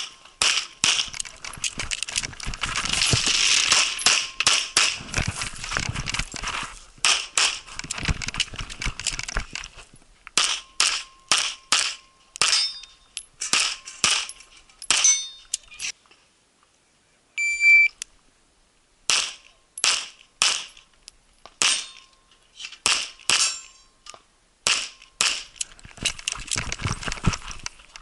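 Pistol shots fired in fast strings and quick pairs, dozens in all, with a pause of about three seconds past the middle. The pistol is a single-stack pistol shooting minor-power-factor loads.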